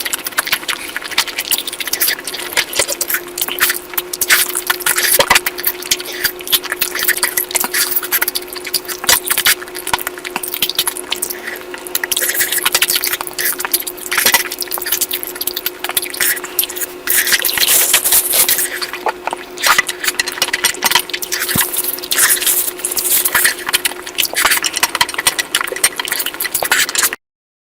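Close-miked wet eating sounds of curry being chewed and smacked: dense, crackly, squelching clicks, with a faint steady hum underneath. The sound cuts off suddenly near the end.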